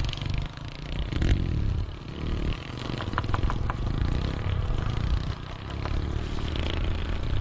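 RGT EX86190 radio-controlled 4x4 crawler driving over rough ground: its motor and drivetrain run while the wheels clatter and scrape. About three seconds in there is a quick run of four short ticks.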